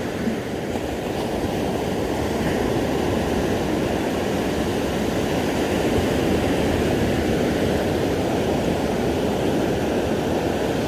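Ocean surf washing onto a sandy beach, a steady even noise.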